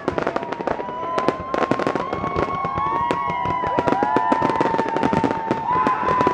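Fireworks display: a dense, rapid string of pops, bangs and crackles from shells and fountain effects going off. Several long held tones at different pitches run over the bangs from about half a second in.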